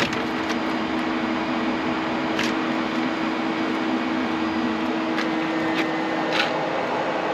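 Engine of a JQ400 mini skid steer running steadily, a constant hum with a steady tone.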